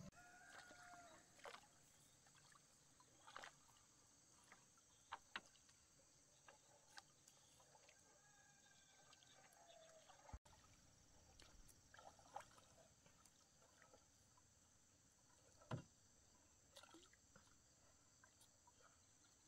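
Near silence: faint outdoor ambience on a lake, with a steady high insect hum, scattered soft knocks and light water sounds, as of a small boat being handled, and a few short chirps.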